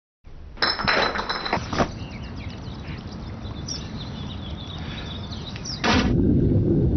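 A few sharp clinks, then faint high chirps over a soft hiss. About six seconds in comes a sudden loud splash of a person diving into a swimming pool, running on as a dense, muffled rush of churning water.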